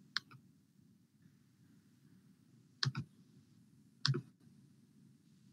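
Computer mouse clicks: one click near the start, a quick pair around three seconds in, and another click about four seconds in, as a screen share is started.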